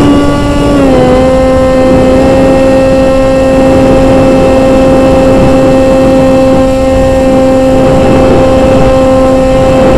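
Electric motor and propeller of an Easystar model plane running at climb throttle, heard from the onboard camera as a steady buzzing drone with air rushing past. The pitch steps down slightly about a second in, as the throttle is eased back, then holds steady.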